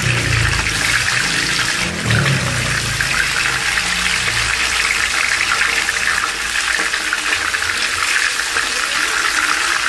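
Raw chicken pieces deep-frying in hot oil in a pan, a steady loud sizzle as more pieces are added with tongs. The sizzle swells briefly about two seconds in.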